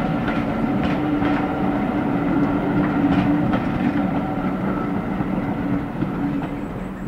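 Diesel locomotive running along the line: a steady engine note with a few clicks from the wheels over the rail joints, dying away near the end.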